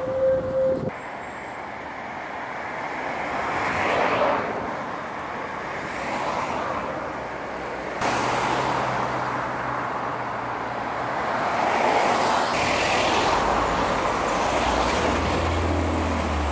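Street traffic: cars driving past, their engine and tyre noise swelling and fading, with a brief steady beep about a second long at the very start.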